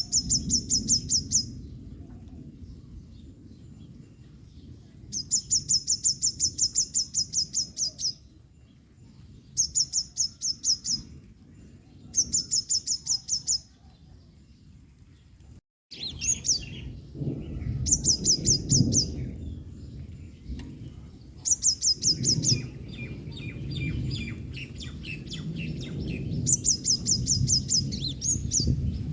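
Yellow-bellied sunbird calling in repeated bursts of rapid, high-pitched chipping notes, each run lasting one to three seconds with pauses between, over a steady low background rumble. Fainter, lower calls from another bird come between the runs in the second half.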